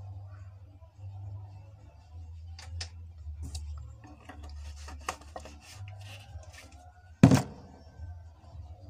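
Light kitchen handling sounds of plastic utensils, scattered small clicks and rubbing over a steady low hum, with one sharp knock a little after seven seconds in.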